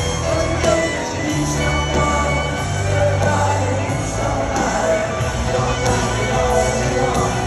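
Live rock band playing a slow ballad at full volume, with piano, electric guitar and singing, heard from the crowd in a stadium.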